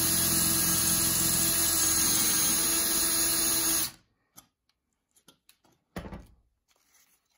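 Cordless drill running at a steady speed with a small brad point bit, boring through a thin metal canning-jar lid into a wood block, then stopping abruptly about four seconds in. A few light clicks and a short knock follow as the lid is handled.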